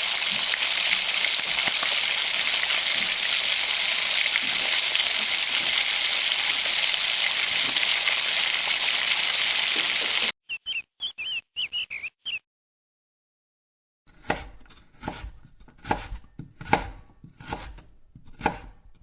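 Food frying in hot oil, a steady loud sizzle that cuts off abruptly about ten seconds in. A brief run of high chirps follows, then a series of sharp, irregular knocks of a knife chopping on a board.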